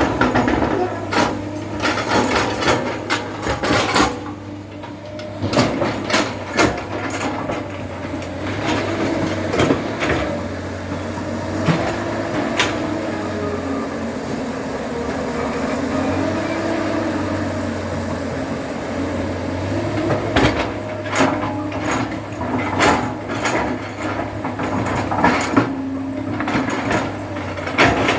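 JCB 3DX backhoe loader's diesel engine running under work, its pitch rising and falling, with frequent knocks and clanks from the machine at work, busiest near the start and end.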